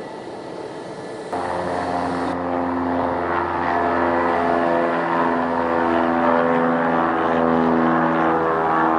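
Airbus A319 jet engines running at idle as the airliner taxis onto the runway: a steady engine drone with several held tones, stepping louder about a second in.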